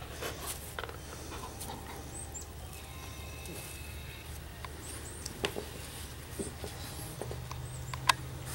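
Small clicks and rustles from a litter of Labrador puppies shifting and nuzzling against each other on a bed, with a few faint short high chirps and one sharp click just after 8 seconds in, over a low steady hum.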